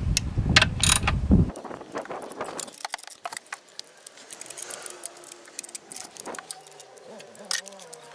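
Ratchet wrench clicking and tools clinking on metal while the intake manifold bolts are tightened. Busiest and loudest in the first second and a half, then scattered light clicks.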